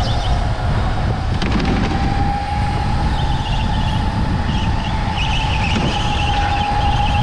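A go-kart heard from on board at speed: a steady whine over a heavy rumble of road and wind noise, with tyre squeal through the corners from about three seconds in.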